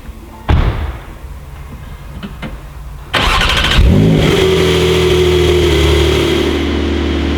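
A single thud, then about three seconds in the Porsche 911 Sport Classic's 3.7-litre flat-six cranks and fires. It flares in revs and settles into a steady, fast idle.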